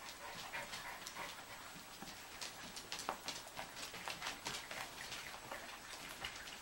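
A litter of 17-day-old schnauzer puppies giving faint, scattered squeaks and whimpers.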